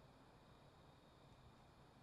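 Near silence: faint room tone in a pause of the drama's soundtrack.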